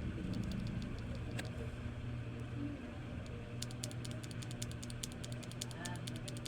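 Mechanical keyboard keys with red linear switches being pressed: a few separate keystrokes at the start, then a quick run of typing for about three seconds from a little past the middle. A steady low hum runs underneath.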